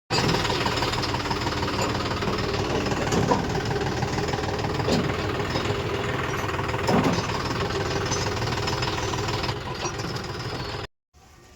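Diesel machinery engine running steadily at a constant speed, with an even knocking rhythm; it cuts off suddenly near the end.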